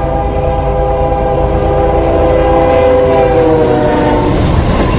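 Locomotive air horn sounding a long held chord over the rumble of a moving train, its pitch dropping slightly as it goes by. The horn stops near the end and the clatter of the passing train takes over.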